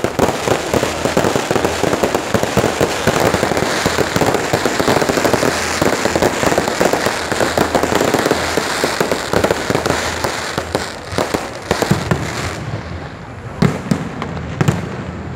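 Aerial fireworks display: a dense, continuous crackling and popping from many bursting shells, which thins out about three-quarters of the way through into a few separate louder bangs.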